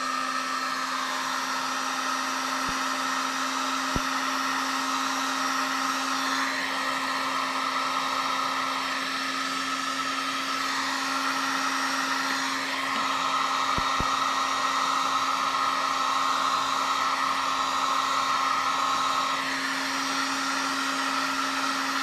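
Handheld electric heat gun running steadily, its fan blowing hot air with a steady whir and low hum to shrink heat-shrink tubing over soldered wire splices; it switches off right at the end.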